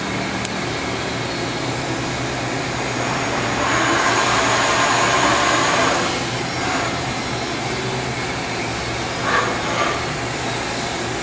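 Milltronics VM24 CNC vertical machining center running a program on dry run: a steady mechanical whir, swelling for about two seconds from roughly four seconds in, with a thin high whine, as the machine moves.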